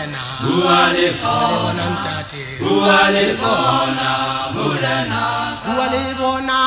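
Male vocal group singing a Sesotho gospel song in several-part harmony, holding notes and moving together from chord to chord.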